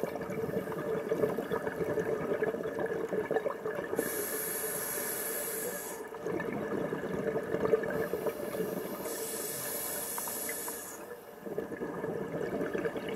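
Scuba diver breathing underwater through a regulator. Two hissing inhales through the demand valve, each about two seconds long, alternate with longer stretches of bubbling exhalation.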